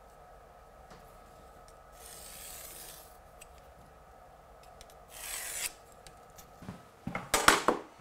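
Pencil drawn along a steel rule on a wall, two scratchy strokes, the second about five seconds in and louder, followed by a few sharp knocks near the end.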